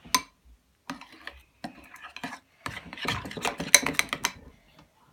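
A utensil stirring a glue-based slime mixture in a bowl, with irregular scrapes and clicks against the bowl that get busier for a moment in the second half. The hair gel just stirred in is starting to make the mixture go lumpy.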